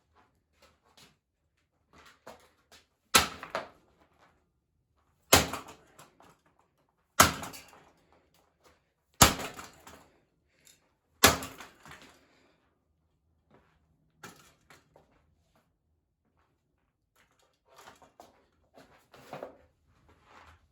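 Sledgehammer blows striking a ceiling fan, five hard hits about two seconds apart, each followed by a brief rattle of metal parts. Quieter knocks and clatter follow near the end.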